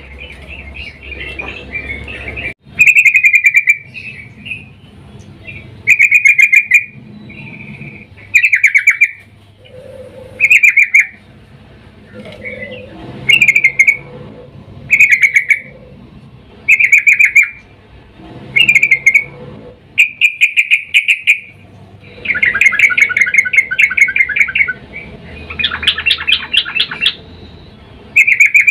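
Yellow-vented bulbul (trucukan), given as a female calling a male, repeating loud, short chattering calls about every one and a half to two seconds, with a longer run of calls near the end.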